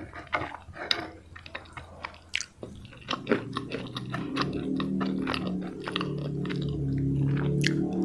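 Close-miked mouth sounds of a person eating fried chicken: wet chewing smacks and clicks, with a low hum coming in about three seconds in.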